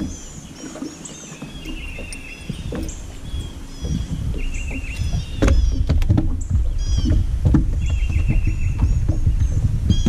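Songbirds singing along the shore, with chirps and quick trills of repeated notes, over a low rumble that gets much louder about halfway through, with a few sharp clicks around then.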